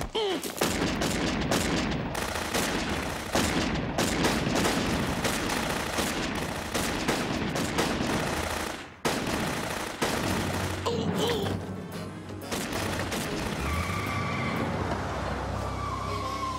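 A gunfight: dozens of gunshots fired in rapid exchange, with music underneath. The shooting dies away about thirteen seconds in, leaving the music.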